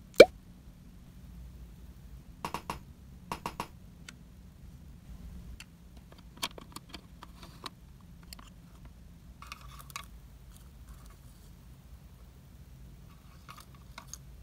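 A single short 'plop' that rises quickly in pitch, the loudest sound here. After it come scattered light clicks and taps of small plastic miniature kitchen toys being handled: a tiny pan and spatula, the toy microwave and its door, and little mugs set on its tray.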